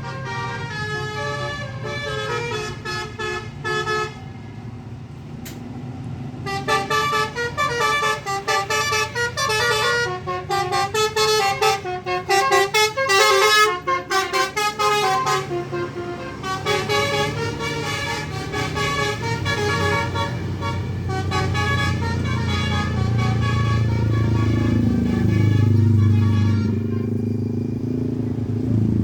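Tour bus's Basuri multi-tone "telolet" air horn playing fast melodic tunes in repeated runs, over the rumble of the bus engine. The horn is busiest through the middle; near the end the horn fades and the engine grows louder, its pitch gliding down and up.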